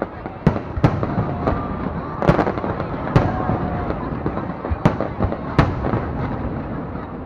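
Fireworks display: a steady din of bursts with sharp, loud bangs at uneven intervals, about seven in all.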